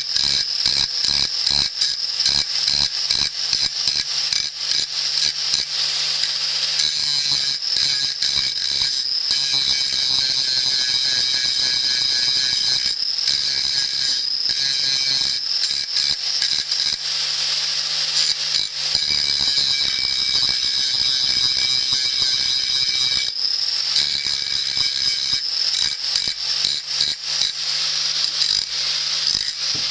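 Abrasive deburring and polishing of steel: a steady high-pitched rasping over a low hum, with dense rapid scratching. The texture shifts a few times.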